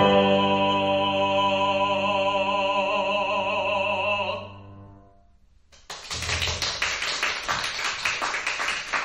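A man's classical singing voice holds the song's final note with vibrato over a sustained grand piano chord, fading out about four seconds in. After a brief hush, an audience starts clapping about six seconds in.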